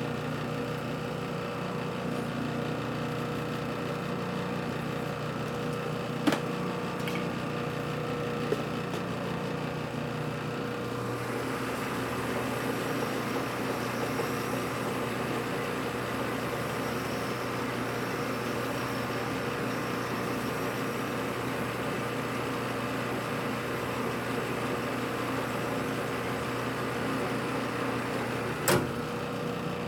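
Metal lathe running steadily with a honing stone held against the spinning workpiece, lubricated with honing oil; the running sound shifts about eleven seconds in. A few sharp clicks, the loudest near the end.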